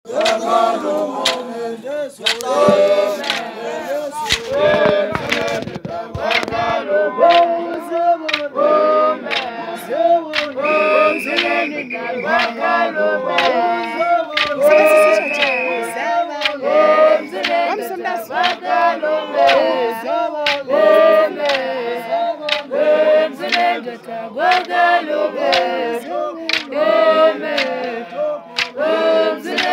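A group of voices singing together unaccompanied, a traditional Xhosa song, with sharp knocks scattered throughout. A high steady note is held briefly twice near the middle.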